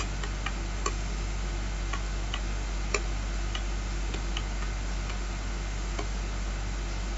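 Light, irregularly spaced clicks from a computer mouse scroll wheel turning a web page, about a dozen scattered through, over a steady low hum.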